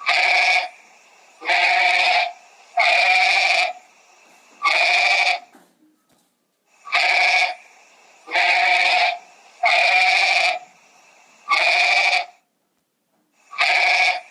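An animal bleating over and over: about nine calls of roughly a second each, with short gaps between them.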